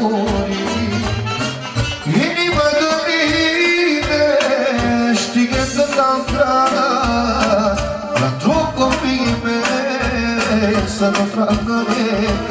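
Loud amplified live party music: a man singing a wavering, ornamented melody into a handheld microphone over a backing band with a steady beat.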